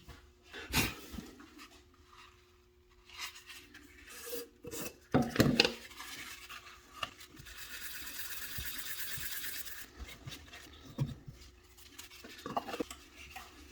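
Wooden workpiece and tools being handled in a wood-turning shop: several sharp knocks and clatters, with a few seconds of steady scraping or rubbing on wood in the middle.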